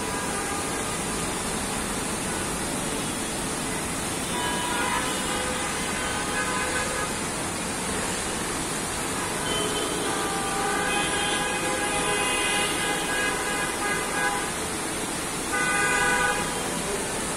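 Busy city road traffic with vehicle horns honking in several stretches over a steady hiss of traffic and rain. Horns first sound a few seconds in, overlap for several seconds in the middle, and give one loudest burst near the end.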